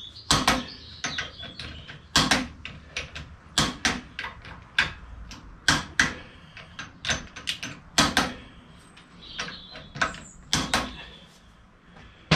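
A click-type torque wrench, set at 60 ft-lb, ratcheting on the crown-wheel bolts of a Mini A-series differential. It gives a run of sharp metallic clicks at irregular intervals as the bolts are tightened.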